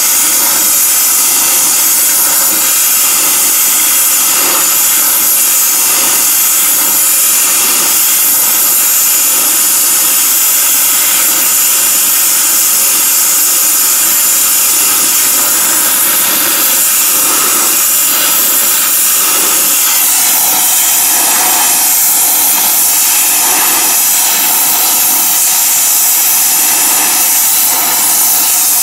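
Oxy-fuel torch flame hissing steadily as it heats the end of a hardened steel splined shaft to anneal it.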